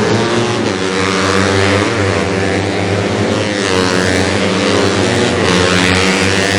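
125cc four-stroke underbone race motorcycles running hard at high revs, their engine pitch rising and falling as they pass.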